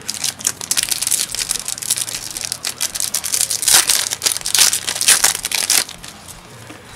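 Foil Yu-Gi-Oh! booster pack wrapper crinkling as it is handled and torn open by hand, a dense crackling that stops near the end.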